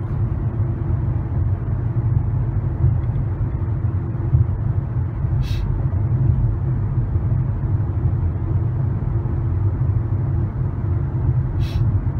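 Steady low rumble of a car's engine and tyres on the road, heard from inside the moving car's cabin. Two brief, high-pitched ticks come through, one about halfway through and one near the end.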